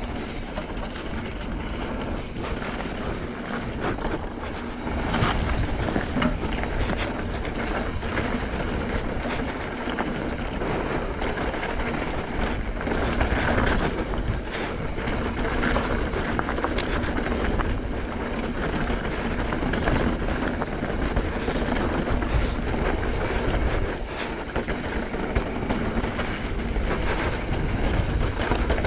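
Mountain bike riding fast down dirt singletrack: a continuous rumble of tyres on packed dirt and wind, with scattered clicks and rattles from the bike over bumps. It gets louder about five seconds in.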